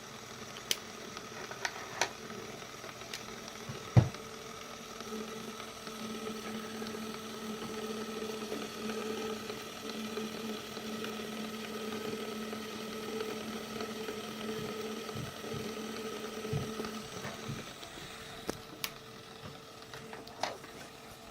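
Small Lego WeDo electric motor running steadily and turning a Lego gear train, a steady hum and whine with a few sharp knocks, the loudest about four seconds in. The lower part of the hum drops out about seventeen seconds in.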